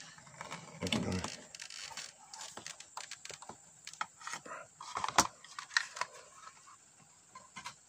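Scattered small clicks, knocks and scrapes of wires and plastic connectors being handled on the bare metal chassis of an opened LCD TV, the sharpest click about five seconds in.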